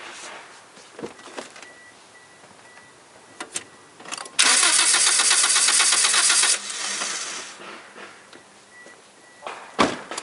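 Starter motor cranking a Toyota Corolla four-cylinder VVT-i petrol engine for about two seconds, with even pulses, then dying away. This is the cranking run of a compression test on cylinder 3, with the gauge in its spark-plug hole. A couple of clicks come shortly before the cranking.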